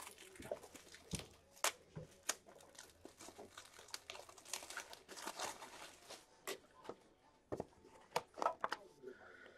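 Faint crinkling and rustling of plastic wrapping, with scattered light clicks and taps, as trading cards and plastic card holders are handled.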